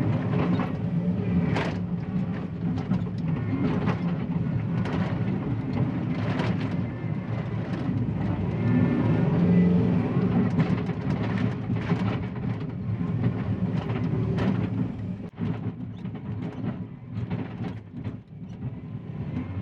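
John Deere 333E compact track loader's diesel engine running under load in a trench, with frequent clanks and knocks from the machine working, getting quieter in the last few seconds.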